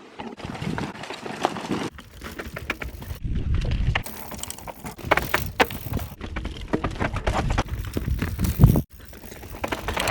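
A Scott Genius 720 mountain bike being ridden over rough ground: tyre noise with rattles and knocks as it hits bumps, in several short clips that cut abruptly from one to the next.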